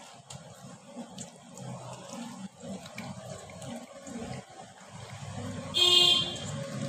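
Wet squelching and sloshing of a hand working fish pieces through masala paste in a steel bowl. About six seconds in, a short, loud honk-like tone cuts across it.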